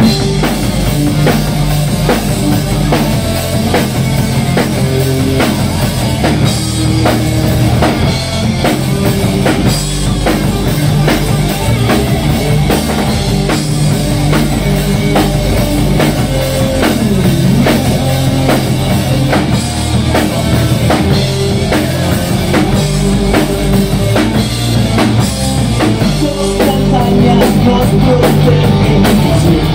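A live rock band playing: electric guitars and bass over a drum kit keeping a steady beat.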